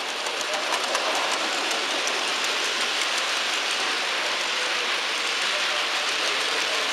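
Model train running past on the layout's track: a steady rushing rattle of small wheels over the rails, with fine ticks from the rail joints.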